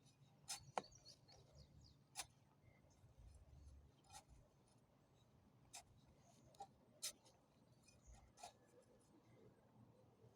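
Near silence broken by about a dozen faint, sharp clicks and light rustles, scattered irregularly.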